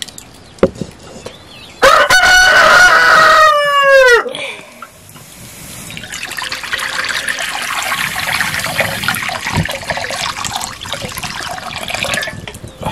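A rooster crows once, loudly, for about two seconds. Then water is poured from a pot into a large iron wok, a steady splashing pour that builds up and runs for several seconds until near the end.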